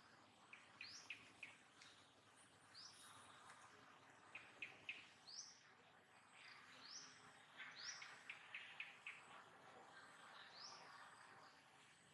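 Faint bird calls: short, high, upward-sweeping chirps about every second, with quick runs of three or four lower notes between them, over a faint outdoor hiss.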